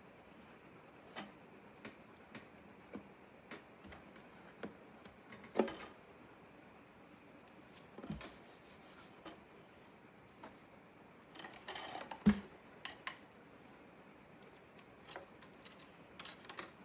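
Hand-work noises on a mandolin body: scattered small clicks, taps and rustles as masking tape and a plastic binding strip are handled. Two louder knocks come about five and a half and twelve seconds in.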